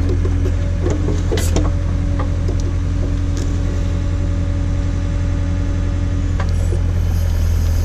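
John Deere 317 tractor's engine running steadily while it drives the Davis D100 backhoe, with a steady whine on top that stops about six seconds in. A few sharp cracks and snaps come about a second in.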